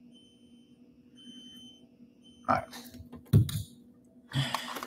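Faint, short, high-pitched beeps repeating about once a second. Then, from about halfway, three loud bursts of rustling and clattering as fishing tackle and lures are handled.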